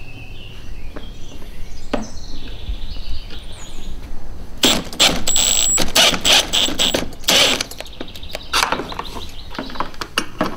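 Hand tools working a mounting bolt down through a plastic kayak hull into a plastic lock nut held by a wedged screwdriver: a few clicks at first, a dense run of clicking and scraping about halfway through, then lighter clicks near the end.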